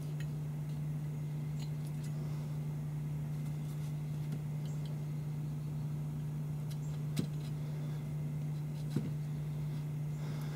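Light metal clicks and taps from handling an AR-15 barrel and clamped front sight block while a T-handle taper reamer is set into the pin hole, over a steady low hum; two sharper clicks come about seven and nine seconds in.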